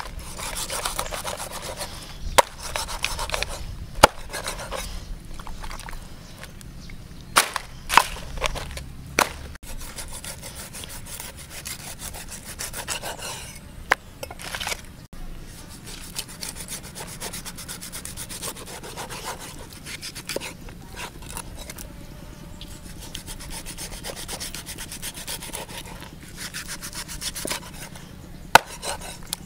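Large kitchen knife scraping and sawing through stingray skin and flesh, with a few sharp knocks of the blade against a wooden chopping block.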